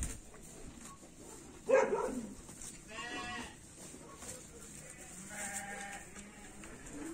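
Livestock bleating: three short calls, the loudest about two seconds in, the others near three and five and a half seconds.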